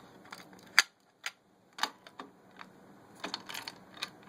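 A CAT30 key being worked in the lock of a Simplex 2099-9756 dual-action pull station: one sharp, loud click about a second in, two more clicks over the next second, then lighter clicking and rattling as the station is handled.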